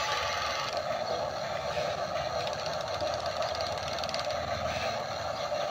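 Small electric motors and plastic gearboxes of radio-controlled toy construction machines whirring steadily as they move, with a fast fine ticking from the gears.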